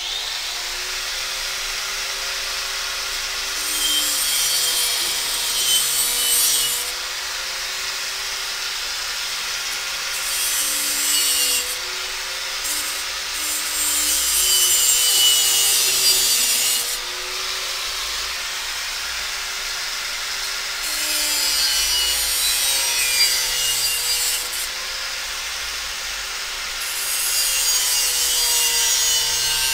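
Handheld angle grinder running steadily, its disc pressed into a metal tube held in a vise in about five passes of loud, high grinding hiss, with the motor's whine running freely in between.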